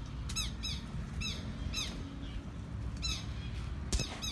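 Southern lapwings (quero-quero) calling in sharp, repeated alarm notes, each a short high note sliding downward, several a second and some in pairs, as they fight off a red-legged seriema.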